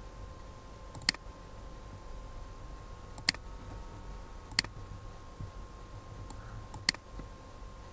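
Computer mouse button clicked four times: single sharp clicks spaced one to two seconds apart.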